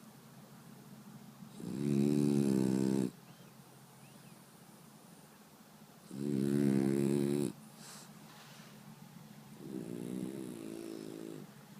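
French bulldog snoring loudly in its sleep: three long snores, each about a second and a half and some four seconds apart, the last one softer.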